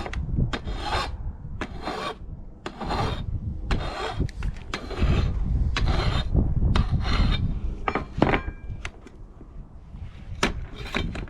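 A hand file rasping back and forth along the freshly cut edge of an aluminum angle bracket, dulling the sharp edge. It makes repeated strokes, a little under two a second, that thin out and get quieter near the end.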